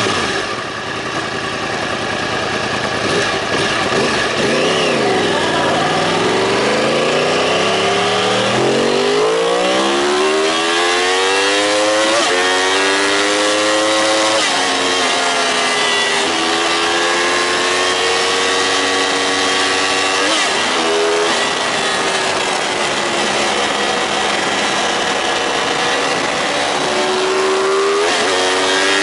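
Yamaha YZF-R1 (RN22) crossplane inline-four engine accelerating hard through the gears, heard onboard over rushing wind. The revs dip about five seconds in, then climb and drop back at each upshift, about five times.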